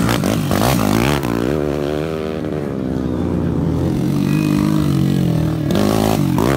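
Motocross bikes racing through a dirt berm turn, engines revving with their pitch rising and falling through the corner. A second bike comes through loudly near the end.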